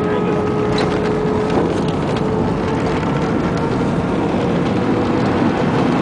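Airbus A319 cabin noise during the landing rollout: a steady rumble of engines and wheels on the runway, with a steady engine tone that fades away about halfway through.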